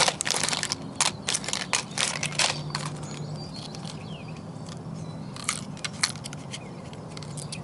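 Packaging crinkling and crackling while a pack of small LED bulbs is opened and handled. The crackles are dense for the first two or three seconds and then come in a few scattered clicks.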